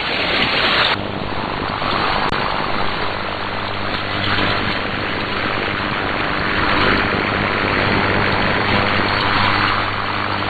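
Shortwave radio static heard through an SDR receiver tuned to 7475 kHz: a steady hiss with a faint low hum underneath, with no programme audio on the channel between broadcasts. The hiss is a little brighter in the first second.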